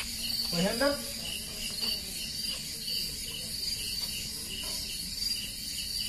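Crickets chirping in a steady, high, pulsing trill, with a brief rising sound a little over half a second in.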